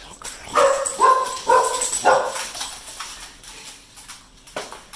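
A dog barking four times in quick succession, greeting its returning owners with excitement.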